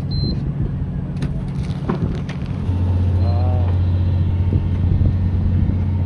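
Steady low drone of a fishing boat's engine machinery, growing louder about two and a half seconds in, with a few sharp clicks over it.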